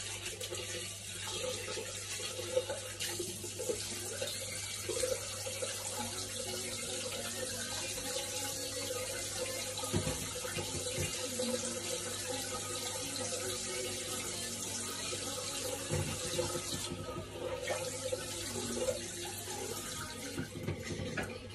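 A bathroom tap running steadily into a sink, with a few small knocks and splashes.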